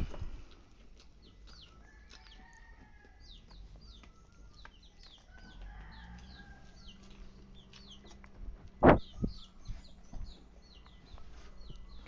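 Birds chirping steadily in many short, quick, high notes that slide downward, with a few longer, lower calls now and then. A loud knock comes about nine seconds in, with smaller knocks at the start and end.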